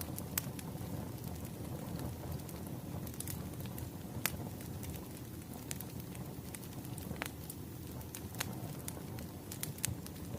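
Wood fire crackling: a steady low rush of burning logs with scattered sharp pops and snaps, about one or two a second.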